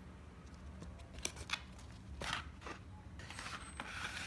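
Packaging of a metal model kit being opened and handled: crinkling rustles with a few light clicks.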